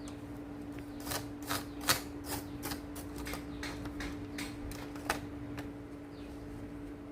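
A quick series of small, sharp clicks and taps from the plastic and metal parts of a laptop being handled and pried apart, about a dozen over some four seconds, with one louder snap near the middle. A steady low hum runs underneath.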